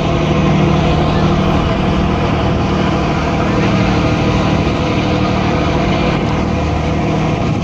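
Tour boat's engines droning steadily with a constant low hum, heard from the open deck with wind noise and the rush of the wake water.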